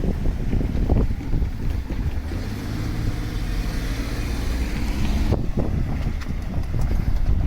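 Wind buffeting the microphone, with a road vehicle's steady engine hum and tyre hiss passing for about three seconds in the middle.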